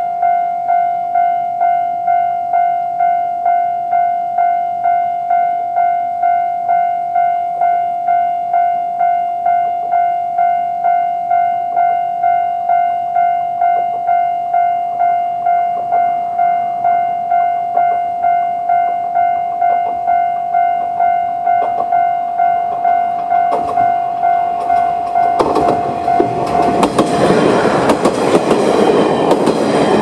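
Japanese level crossing's electronic warning bell ringing in steady pulses, about two strokes a second. Near the end a two-car Aizu Railway AT-400/AT-350 diesel railcar train runs over the crossing, its wheels clacking over the rail joints and its noise swamping the bell.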